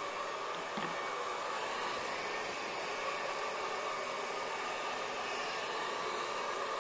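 Handheld hair dryer running steadily on wet hair, a constant rushing hiss with a steady hum, its high hiss growing brighter for a few seconds mid-way.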